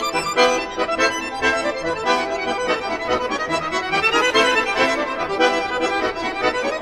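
Accordion playing a fast, lively Russian folk dance tune as an instrumental break between sung verses.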